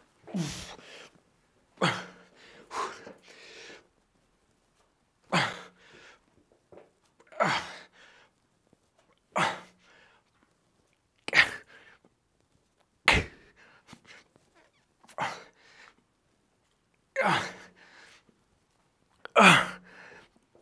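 A man's hard breathing and grunting under heavy effort: a sharp, forceful exhale with each rep of an incline dumbbell press with 25 kg dumbbells, about one every two seconds, in a set taken to failure.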